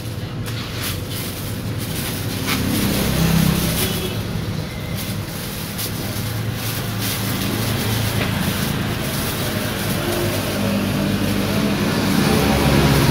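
Passing motor traffic, with engine noise swelling past about three seconds in and again near the end. Plastic bags and cups crinkle and click as they are handled, mostly in the first couple of seconds.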